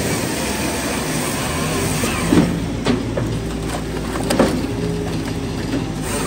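Timberwolf Pro HD XL firewood processor running steadily, its engine and hydraulics humming, with three sharp knocks in the middle as split firewood drops from the wedge onto the integrated conveyor.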